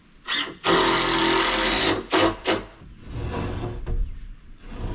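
A power tool runs hard for about a second, then gives two short bursts, followed by a lower mechanical rumble.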